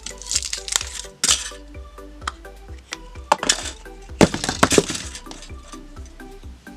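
Kinder Surprise eggs being cracked open, a run of sharp crackles and cracks in several clusters, loudest about four seconds in. Upbeat electronic dance music with a steady beat plays underneath.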